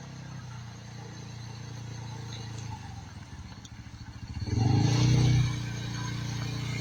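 Coolster 3150CXC 150cc ATV engine running, throttled up a little past halfway so that it gets louder and higher for about a second, then easing back.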